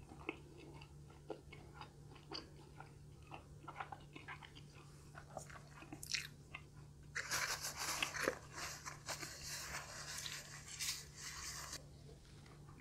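Close-up mouth sounds of a person chewing food, with soft wet clicks. About seven seconds in comes a louder, denser stretch of crunching noise that lasts about four and a half seconds.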